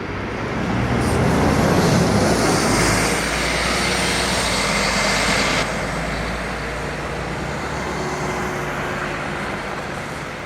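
Solaris Urbino 18 articulated city bus running under way, its engine building in level over the first two seconds. A high whine above it falls away and cuts off about five and a half seconds in.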